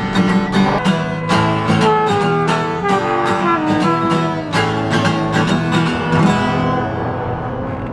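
Acoustic guitar strummed in a steady rhythm while a trumpet plays a melody over it; the strumming stops and the music dies away near the end.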